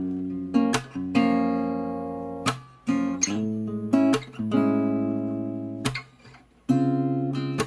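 Background music: acoustic guitar strumming chords that ring out between strokes, with a brief drop-out about six seconds in.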